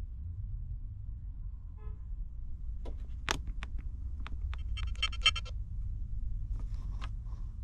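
Finger taps on an Omnitracs in-cab logging touchscreen, with a faint short beep about two seconds in and a quick string of electronic beeps about five seconds in. Underneath is the low steady rumble of a semi truck's diesel engine idling.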